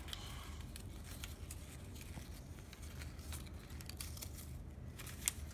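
Construction-paper loops being handled and squeezed together: faint scattered rustles and light taps, with one sharper tap about five seconds in.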